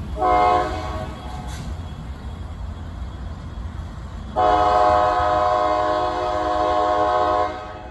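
Locomotive air horn sounding at a grade crossing: a short blast, then a long blast of about three seconds, over the low rumble of the passing train. A short-then-long ending like this matches the standard crossing signal.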